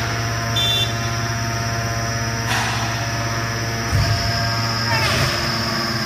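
Hydraulic power unit of a metal-shavings compactor running, a steady hum with a low thump about four seconds in, after which the low hum wavers.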